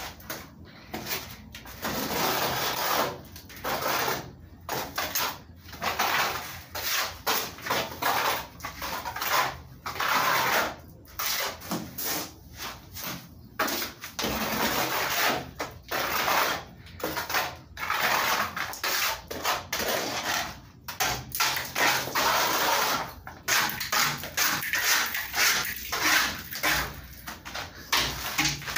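Plastering trowel scraping as plaster is spread and smoothed onto a hollow concrete-block wall, in repeated noisy strokes about one a second with short pauses between.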